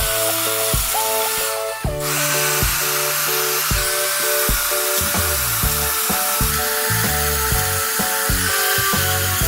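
Background music with changing notes over a bass line, with a steady hiss of power-tool work on wood underneath it.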